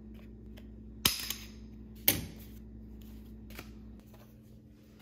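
Two sharp clacks about a second apart, the second with a short rattle, from a spring-handled metal hand tool being worked or set down on a stone countertop, with a few faint ticks around them.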